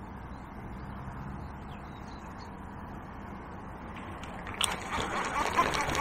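Faint steady riverside background, then about four and a half seconds in a sudden louder run of quick clicking and rattling from the fishing reel being wound in on a stick-float rod.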